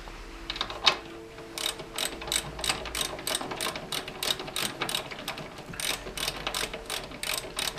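Hand ratchet wrench clicking in a quick, even run of about four to five clicks a second as it turns a bolt at a motorcycle's front brake caliper.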